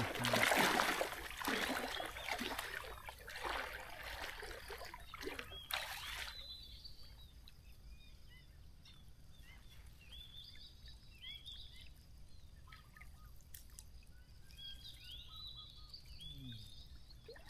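Legs wading through shin-deep water, swishing and splashing, loud for the first few seconds and fading out about six seconds in as the wader moves away. After that it is quiet apart from small birds chirping.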